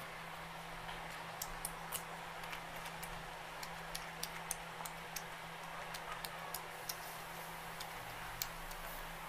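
Eating by hand from a steel plate: small, irregular clicks and smacks as fingers mix rice on the plate and food is chewed, over a steady low hum.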